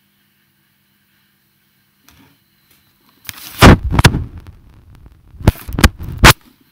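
A faint steady hum, then about halfway through a series of loud knocks and rubbing thumps right at the microphone, in two bunches, like the recording device being handled.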